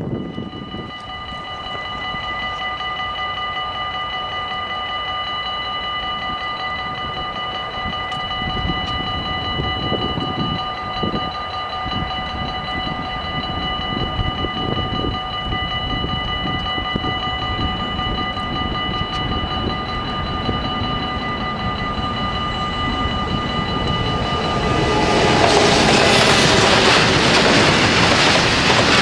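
Level-crossing warning bells ring steadily. About 25 seconds in, a freight train of tank wagons reaches the crossing and its passing wagons and wheels drown the bells in a loud rush of noise.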